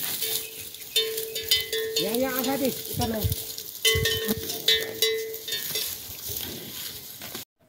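Metal bell on a grazing water buffalo's neck clanking and ringing as it moves its head, over the crunch of plants being torn and chewed. A short call that rises and falls in pitch sounds about two seconds in.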